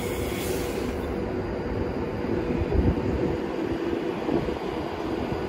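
Avanti West Coast Class 390 Pendolino electric train moving slowly past along the platform: a steady hum over a low rumble of wheels on rail.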